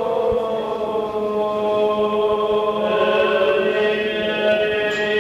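Byzantine chant of the Greek Orthodox Divine Liturgy: a sung melody in long held notes over a steady low drone (the ison).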